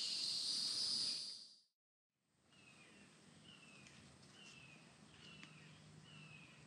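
A steady, high insect drone of crickets or cicadas fades out about a second and a half in. After a short silent gap, a faint series of short, falling chirps repeats about every two-thirds of a second.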